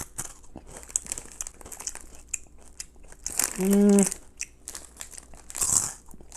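A person biting and chewing crunchy salt-and-vinegar potato sticks, with many small crunches and the crinkle of the plastic snack packet. A short hummed "mm" comes a little past the middle.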